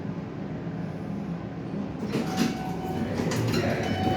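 Elevator sliding doors clattering and rattling from about two seconds in, over the steady hum of the elevator.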